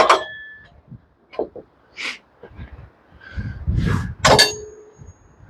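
Metal clanks from steel parts of a portable band sawmill being handled, with a few lighter knocks in between. The loudest clank comes about four seconds in and leaves a ring that lasts about a second.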